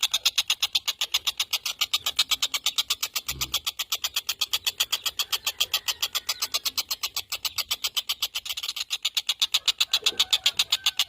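Tengkek buto kingfisher giving a fast, even rattling chatter of about eight sharp, high notes a second, the call used to train songbirds for contests. A brief low thump comes a few seconds in.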